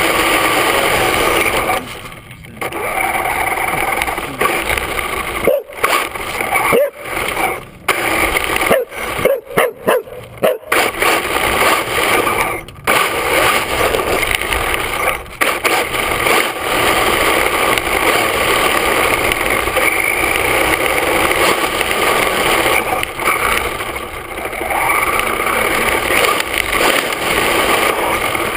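Electric RC truck with a Velineon VXL-3s brushless system driving over asphalt, heard from a camera mounted on its body: steady motor and drivetrain whine with tyre and wind noise. It drops out briefly several times between about 2 and 13 seconds, as the truck lets off and picks up again.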